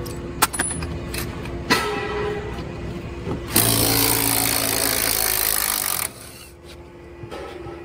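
Cordless impact wrench running for about two and a half seconds, loosening a seat bolt, then stopping abruptly. A couple of sharp clicks come before it.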